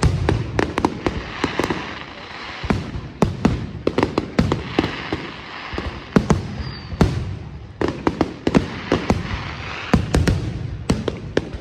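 Fireworks display: rapid shell bursts, many bangs in quick clusters over continuous crackling, with a short lull around the two-and-a-half second mark and again near seven seconds.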